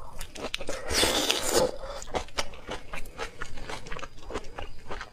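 A person biting and chewing crunchy food close to the microphone: a quick run of crisp cracks and smacks, with a longer rushing noise lasting most of a second from about a second in.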